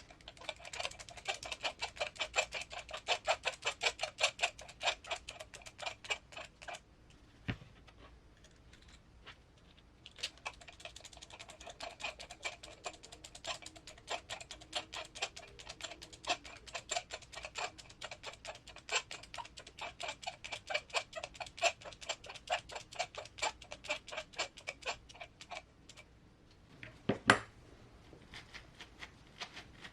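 Rapid, regular clicking, about six or seven clicks a second, as the screws holding the RC transmission case together are driven in by hand. It breaks off for a few seconds, then runs on, and there is a single louder knock near the end.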